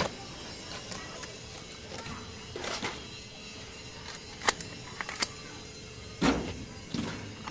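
Pruning shears snipping at a pineapple plant: a handful of sharp, separate clicks a second or more apart, over a faint steady hum.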